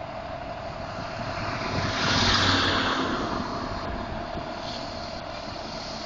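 Fire engine's diesel engine running as the truck pulls away, swelling louder about two seconds in and then easing back, over a steady high tone.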